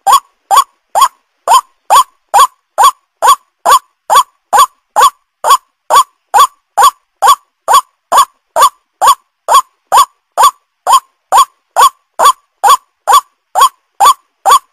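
White-breasted waterhen (ruak-ruak) calling over and over: short identical notes, a little over two a second, at a steady, unbroken pace.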